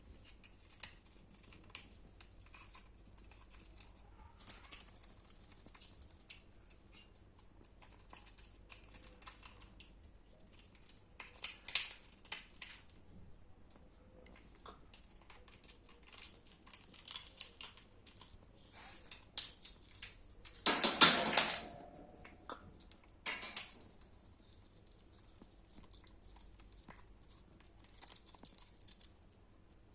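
Grey parrot making scattered sharp clicks and taps, with small clusters of them. About two-thirds of the way through comes a louder burst of noise lasting about a second, and a shorter one follows soon after.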